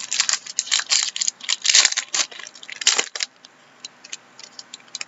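Crinkling and tearing of a trading-card pack wrapper being opened and handled, in a run of loud crackles over the first three seconds, followed by a few light ticks.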